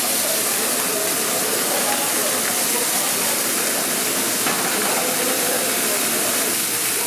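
Raw tomahawk and Wagyu steaks sizzling steadily on a hot flat-top griddle as they sear.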